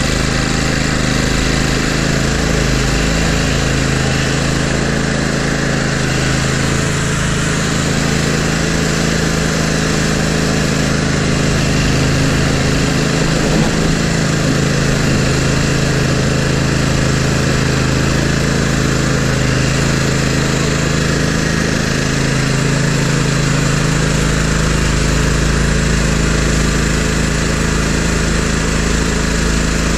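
Engine of a Toro Grandstand Multiforce stand-on mower running steadily, with a constant low hum, while the machine plows snow.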